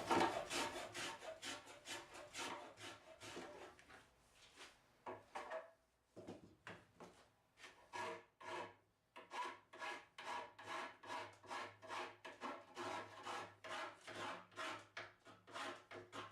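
A hand tool worked back and forth on wood, sanding, rasping or sawing, at about two strokes a second. The strokes pause for about two seconds midway, then resume.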